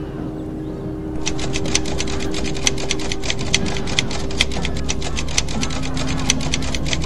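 Typing sound effect: fast, uneven key clicks start about a second in and run on, several a second, over a low steady drone.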